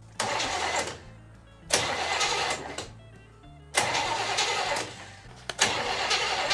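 Car engine being cranked in three short bursts of about a second each, catching on the fourth try about five and a half seconds in and running on.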